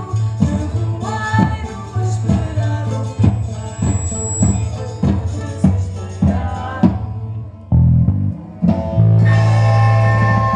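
A large folk ensemble playing a Portuguese dance tune live, a steady beat of about two strokes a second over a low sustained bass. About three quarters of the way through it drops out briefly, then comes back as a louder sustained passage from the full band.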